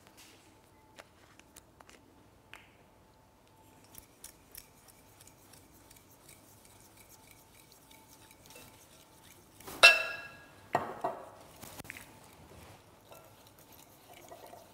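Faint clicks and taps of glassware as olive oil is poured from a glass bottle into a glass bowl of sugar. About ten seconds in comes one sharp, ringing clink of glass, followed by a few lighter knocks.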